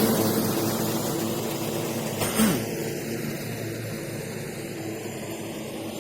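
A motor vehicle's engine passing close by and fading away as it drives off, with a brief knock a little over two seconds in.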